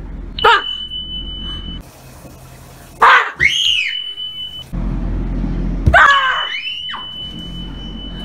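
Startled kids shrieking and screaming as they are scared: a brief yelp about half a second in, then louder screams about three seconds in and again about six seconds in.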